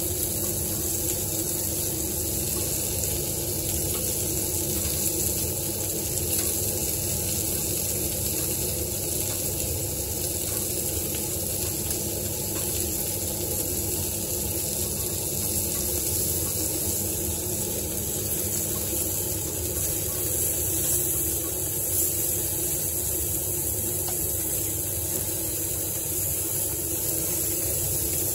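Steady sizzling hiss of köfte meatballs and sucuk sausage cooking on a charcoal grill, over a constant low hum.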